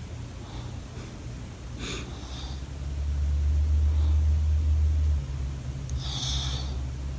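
An English bulldog snorting through his flat nose: two short snorting breaths, about two seconds in and again near the end. A low rumble runs underneath and is loudest in the middle.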